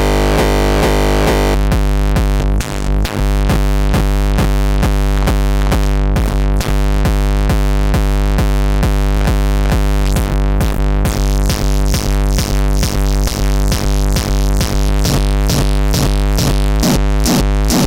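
Distorted hardstyle kick drum, a 909 kick run through FabFilter Volcano 3's resonant filter distortion, looping in a fast, steady electronic beat. Its tone shifts as the filter is adjusted, with the top end thinning about a second and a half in and turning brighter about eleven seconds in.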